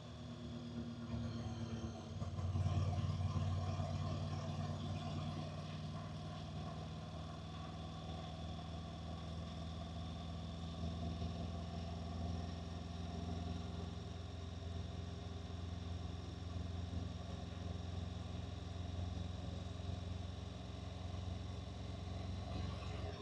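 Honda NC750X DCT motorcycle's parallel-twin engine running on the move, a steady low hum over road and wind noise; it grows louder about two and a half seconds in, then holds steady.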